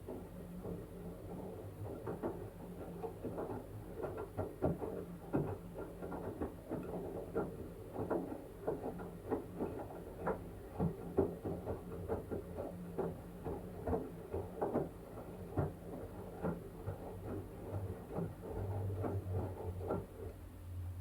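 LG washing machine in its wash cycle, the drum turning a wet blanket: irregular sloshing and soft thuds, several a second, over a steady low motor hum.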